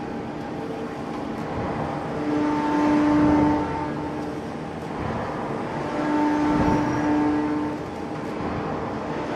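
Large hydraulic open-die forging press and its plant working a red-hot crankshaft billet: a steady industrial hum, with a deep droning tone that swells for about a second and a half twice, some four seconds apart.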